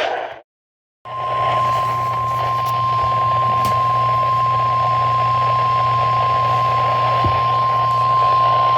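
NOAA Weather Radio 1050 Hz warning alarm tone: one steady high tone held for about eight seconds, starting about a second in after a moment of dead silence. It is heard through a weather radio receiver with hiss and a low hum underneath, and it is the alert tone that announces a warning message, here a severe thunderstorm warning.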